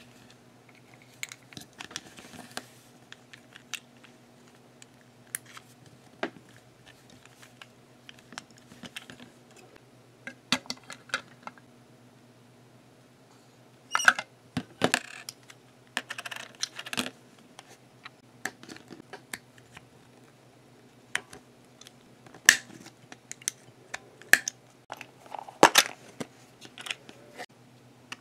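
Small plastic toy train parts being handled: irregular clicks and taps of plastic wheels and a truck body knocking against each other and the table, with a faint steady hum beneath.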